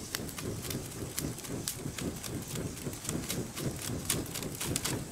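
A flat hand fan waved quickly back and forth to fan a wood campfire: a fast, regular whooshing of air. The burning wood crackles with scattered sharp pops.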